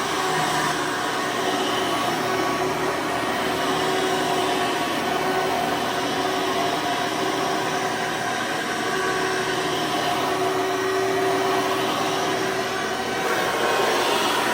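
2003 Hoover Soft & Light Supreme upright vacuum running with its 12-amp motor and 20-blade fan. It gives a loud, steady rush of air with a steady whine over it.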